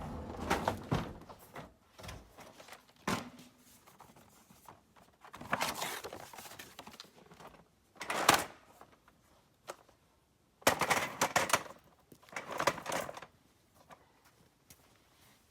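Irregular knocks, clicks and clatter, in bursts of a second or so with quiet gaps between them, like objects being handled and set down.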